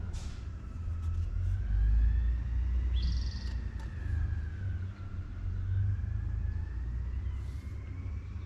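A low rumble that swells and fades throughout, with a faint whine slowly wavering up and down above it and a short bird chirp about three seconds in.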